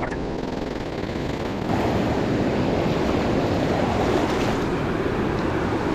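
Shallow surf washing up the beach and around the legs, with wind buffeting the microphone; the wash grows louder about two seconds in.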